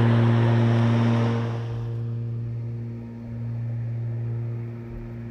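Spear & Jackson S4037CR 40V cordless rotary lawnmower running: a steady electric motor and blade hum with the rush of grass being cut, turning quieter about a second and a half in as the mower moves away to the far end of the lawn.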